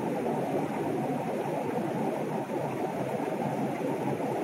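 Heavy rain pouring steadily onto a wet road, an even, dense hiss with no breaks.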